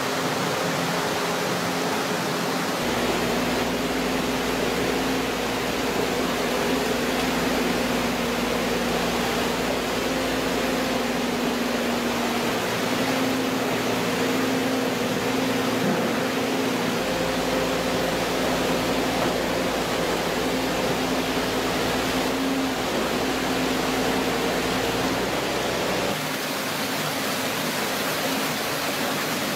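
Steady whine of a radio-controlled scale walking excavator's motor and hydraulic pump, stepping slightly in pitch now and then, over a constant rush of water flowing past it.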